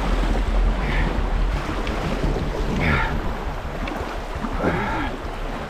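Fast river water rushing around a canoe, with wind rumbling on the microphone, heaviest in the first couple of seconds.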